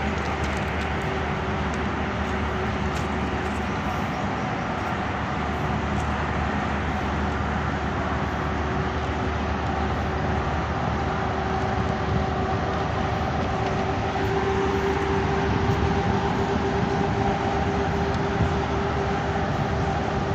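PHA-20 diesel-electric locomotive number 8303 running as it rolls slowly closer, its engine noise steady, with a high steady whine that grows louder in the second half.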